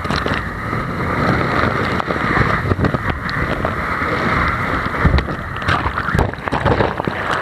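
Water rushing and spraying over a body-worn action camera as a rider slides fast down an enclosed water-slide tube, with heavy thumps about five and six seconds in as the body knocks through the tube and into the water.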